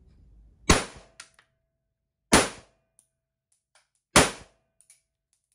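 Kuzey M1911 blank-firing pistol fired three times, about a second and a half to two seconds apart. Each shot is a sharp, loud crack followed by a brief metallic ring, with a few small clinks in between.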